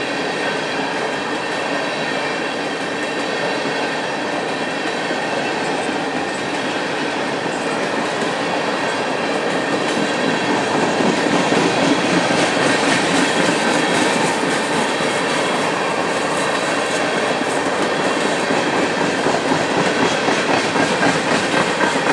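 Railroad tank cars of an ethanol train rolling past: a steady noise of steel wheels on rail, growing a little louder about ten seconds in.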